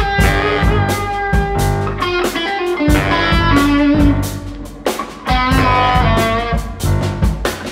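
Live ensemble music with an electric guitar out front, over bass and drums.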